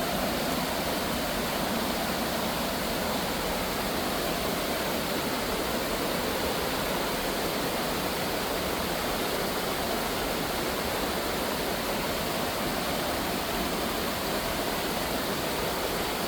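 A waterfall running: a steady, even rush of falling water.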